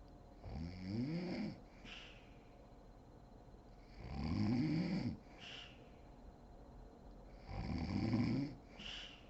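A woman snoring in deep sleep: three pitched snores about three and a half seconds apart, each rising in pitch and lasting about a second, and each followed by a short breathy hiss.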